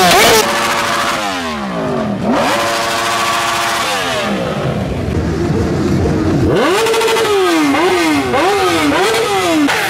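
Sportbike engines revved hard, the pitch falling away steeply each time the throttle is let off; from about seven seconds in, one engine is blipped in quick repeated revs, about two a second.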